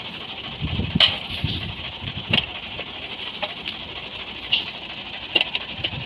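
A handful of sharp metal clinks and knocks, a second or so apart, from hand work on a stationary belt-driven wheat thresher, over a steady high hiss.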